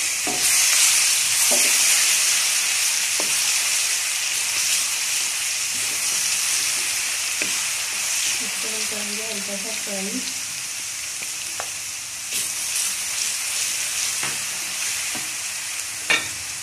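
Garlic paste and cumin seeds sizzling hard in hot oil in a kadhai, stirred with a wooden spatula that scrapes and taps the pan now and then. The sizzle is loudest at the start and eases gradually, with a sharper spatula knock near the end.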